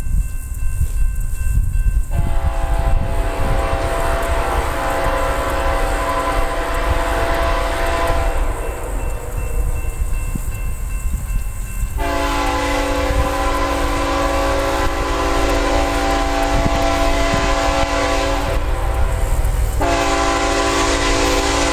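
Multi-chime air horn of CSX ET44AH locomotive 3402 sounding long blasts for the grade crossing as the coal train approaches, starting about two seconds in with short breaks near the middle and near the end, over the locomotive's steady low rumble.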